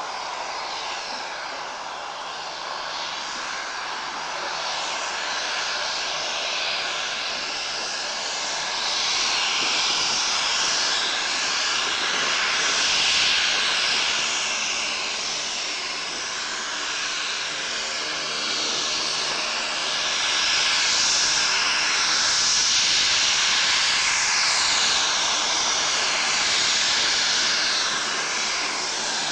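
Fairchild Swearingen Metro twin turboprop taxiing, its Garrett TPE331 engines giving a steady high whine over a rushing propeller hiss, growing louder as the aircraft comes closer.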